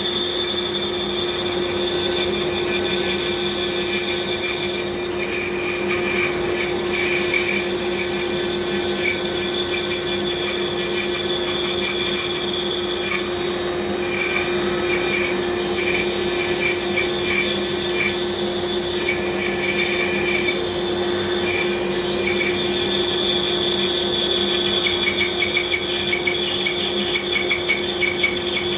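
Bandsaw running with a steady hum, its blade cutting slowly through a thick block of wood with a rasping sound that comes and goes.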